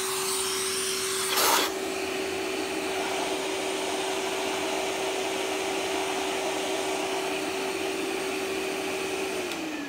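Vacuum cleaner motor running steadily with a constant hum and rushing air, sucking through a blockage that has just been cleared. There is a short clatter about one and a half seconds in. Near the end the motor is switched off and its hum falls away as it winds down.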